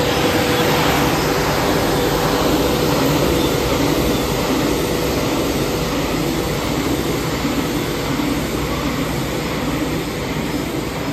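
Circle sanding machine for metal discs running, with its conveyor: a loud, steady mechanical din with a faint hum.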